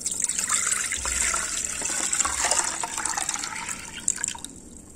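Coconut water being poured into a pan: a steady splashing pour that tapers off and stops about four and a half seconds in.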